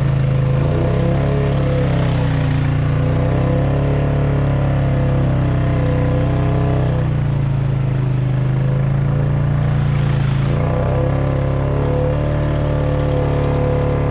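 ATV engine running at steady mid revs, its pitch easing down and back up slightly a few times.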